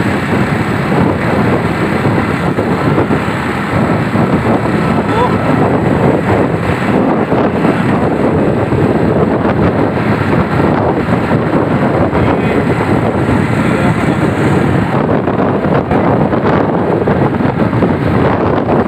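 Wind buffeting the microphone on a moving motorbike, a loud fluttering rush with engine and road noise underneath.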